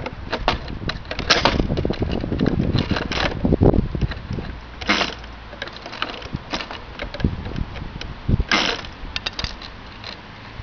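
Irregular clicks and light knocks, like small objects being handled, with three short hisses. No engine is running.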